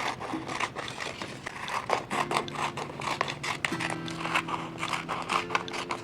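Paper being handled: quick crinkles, taps and scrapes of paper and tape, over soft background music playing held chords.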